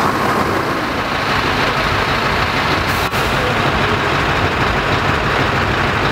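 Scania V8 diesel truck engine idling steadily, a low even rumble with a brief dip about three seconds in.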